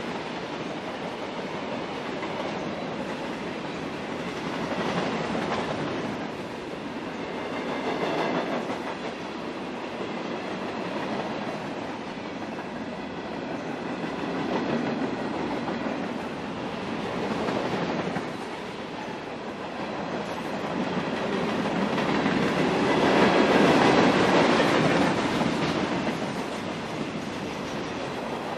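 A freight train's hopper and tank cars rolling past close by: a steady wheel-on-rail rumble with clickety-clack that swells every few seconds as the cars' wheel sets go by, loudest toward the end.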